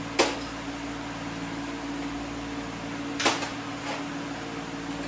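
Steady mechanical hum, with two sharp clinks of hand tools being handled, about a quarter second in and again about three seconds in.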